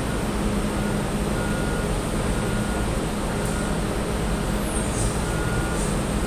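Steady engine drone of heavy container-port machinery (gantry crane and terminal tractor), with a few short high warning beeps at intervals.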